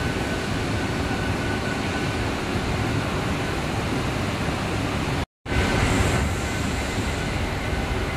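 Steady machinery noise from a LandGlass glass tempering line running, with a faint high whine. It cuts out for a moment about five seconds in.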